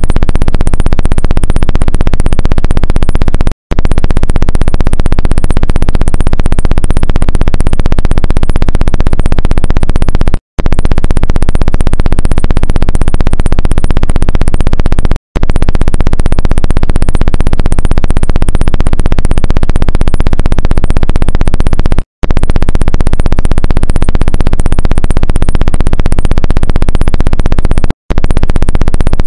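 Loud, buzzy electronic synthesizer sound track, broken by a brief silent gap every several seconds where one clip gives way to the next.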